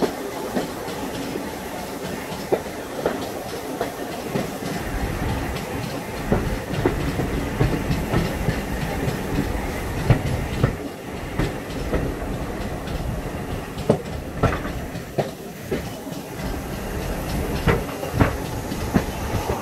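Carriage of a heritage steam train running along jointed track, heard from an open window: a steady rumble of wheels on rail, with irregular sharp clicks and clunks from the rail joints and points. The rumble gets heavier about five seconds in.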